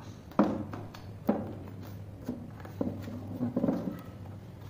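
Hard plastic parts of a water purifier stand being handled: a few sharp knocks as pieces bump against each other and the tiled floor, then a short patch of rustling and clatter about three seconds in.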